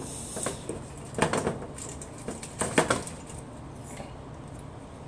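Kuhn Rikon manual safety can opener being twisted around the rim of a steel can: a run of short clicks and scrapes over the first three seconds, then quieter.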